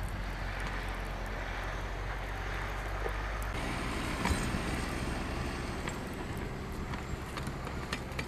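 Steady hum of idling vehicle engines from a flatbed tow truck and a stuck car; the low hum changes about three and a half seconds in, with a few faint clicks.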